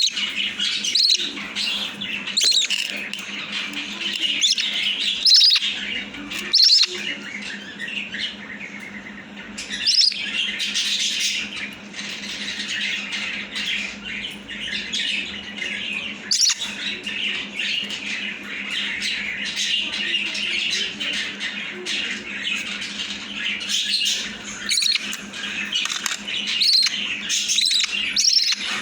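Baby budgerigar chick giving rapid, continuous raspy begging chirps while being hand-fed, over a steady low hum.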